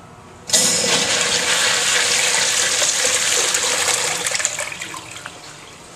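Urinal flushing: a sudden rush of water starts about half a second in, runs hard and steady for about four seconds, then tails off.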